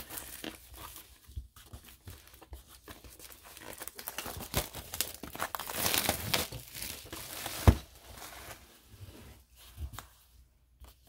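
Plastic wrapping crinkling and tearing as a sealed hockey card hobby box is opened, with one sharp tap about eight seconds in. The rustling dies away near the end.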